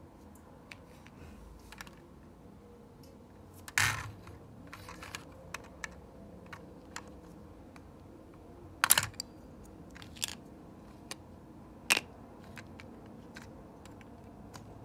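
Lego plastic bricks clicking and clattering as they are handled and pressed onto a model, a string of small scattered clicks with three louder clacks.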